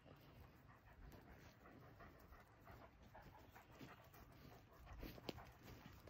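Great Pyrenees puppy panting faintly, with small irregular rustles and clicks of paws on dry pine needles.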